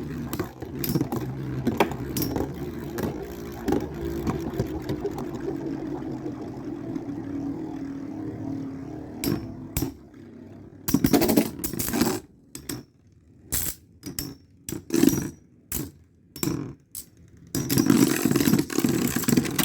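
Two Beyblade spinning tops, Storm Pegasis 105RF and Flame Sagittario C145S, whirring and clashing in a stadium, with sharp clicks as they knock together. For about the first ten seconds the whir is steady and slowly drops in pitch as the tops lose spin. After that it breaks into short separate bursts of scraping and clattering with quiet gaps between them.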